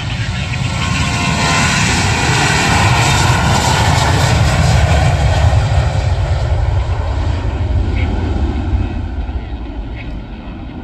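Airliner taking off, its engines at takeoff power, growing louder to a peak about halfway through and then fading away near the end.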